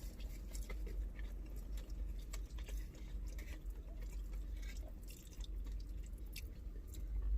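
People chewing food close to the microphone, with small wet mouth clicks and smacks scattered throughout, over a steady low hum.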